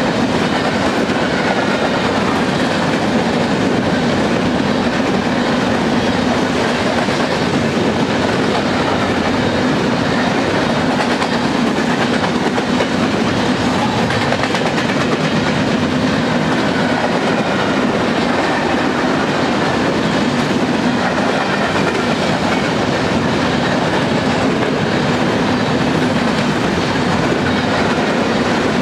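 Union Pacific freight train of covered hopper cars rolling past at speed: a steady, unbroken noise of steel wheels on rail and passing cars.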